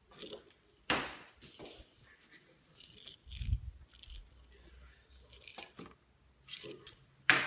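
Scattered rustles, taps and knocks as a cat paws at a sisal-rope toy mouse and its fabric wrapping on a shelf. There is a sharp knock about a second in, a low thump midway, and the loudest sharp knock near the end.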